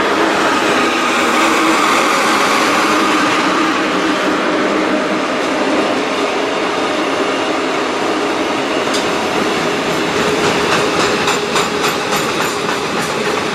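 Freight train of intermodal wagons passing at speed: a steady rush of wheels on rail, with rapid clicking of wheels over the rail joints from about nine seconds in.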